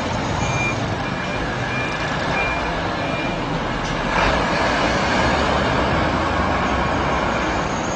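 Heavy flatbed truck's engine running as it manoeuvres, its reversing beeper sounding about every half second until about three seconds in. A short rush of hiss comes a little after four seconds, then the engine runs on.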